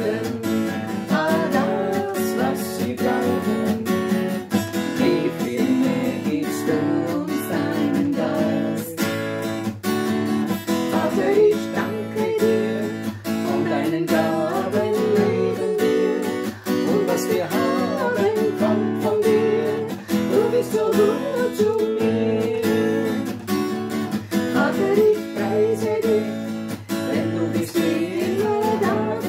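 Acoustic guitar strummed in a steady rhythm, with a woman and a man singing a song to it.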